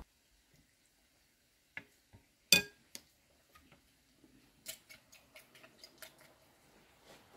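Clinks and light taps of a metal spoon and glass containers handled on a tabletop. One sharp clink about two and a half seconds in is the loudest, followed by a string of lighter ticks and knocks.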